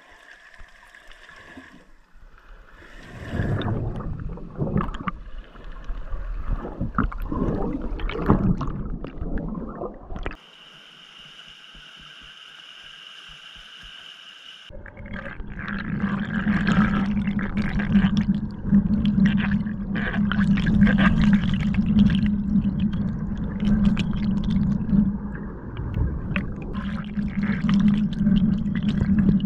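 River whitewater heard underwater: loud churning and gurgling turbulence with a low rumble and bubbling. For a few seconds in the middle, the rapids are heard above the surface as a quieter, steady rushing.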